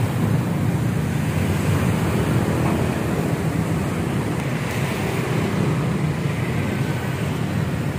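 Steady low rumbling background noise, with no distinct events.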